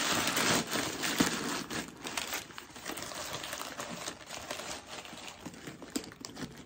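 Crumpled white packing paper crinkling and rustling as it is stuffed by hand into a vegan-leather crossbody bag. It is loudest in the first couple of seconds, then quieter.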